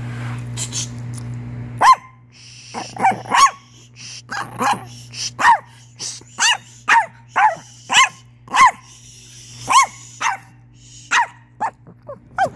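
Chihuahua barking: a run of about fifteen short, sharp, high barks, roughly two a second, starting about two seconds in after a low steady drone.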